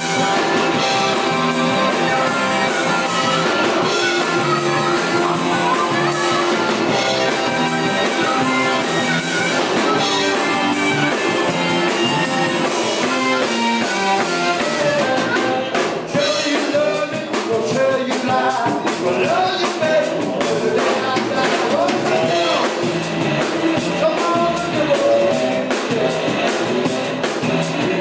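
Live blues-rock band playing: an amplified harmonica solo over electric guitars and a drum kit.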